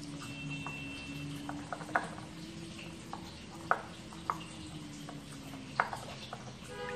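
Metal spoon stirring water in a cut-glass bowl to dissolve a stock cube, with a few sharp clinks of the spoon against the glass.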